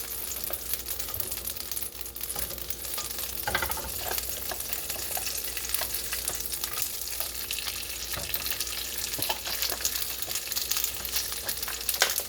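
Chicken dumplings sizzling as they pan-sear in avocado oil and butter, a steady crackling spatter with a few sharper pops.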